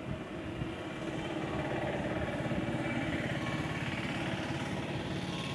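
A motor vehicle engine running, growing louder over the first two or three seconds and then easing off slightly.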